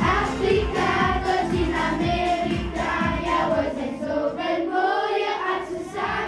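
A group of voices singing a song together over backing music with a steady beat.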